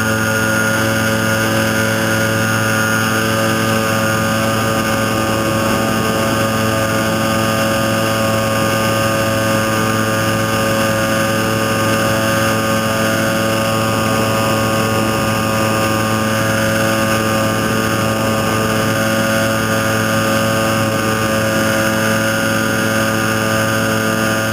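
Nanolight trike's small engine and pusher propeller running at steady power in flight: one even drone that holds its pitch.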